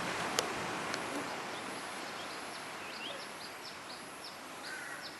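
A bird calling in a run of short, high, falling chirps, about three a second, starting about three seconds in, over a steady rushing background noise. A few sharp clicks come in the first second.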